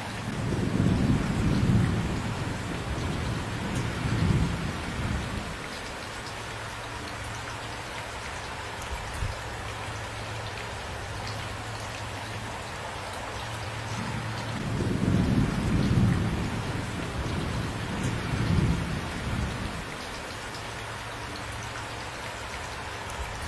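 Steady rainfall with two low rolls of thunder: one from the start lasting about five seconds, and another about fourteen seconds in, each swelling twice before fading back under the rain.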